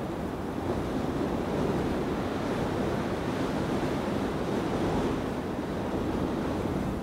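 Wind, a steady rushing noise that swells and eases slightly, with wind buffeting the microphone.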